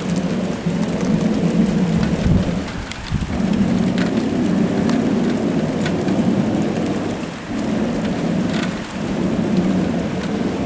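Distant low roar with a steady rumble, dipping briefly about three seconds in and again after seven seconds. It is the noise the uploader takes for a power plant blowing off steam.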